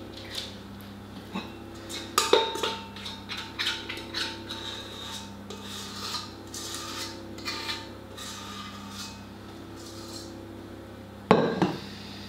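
A spoon scraping and clinking against a stainless steel stand-mixer bowl as cookie dough is scooped out, with scattered small taps and rubs. Two sharper knocks come about two seconds in and just before the end.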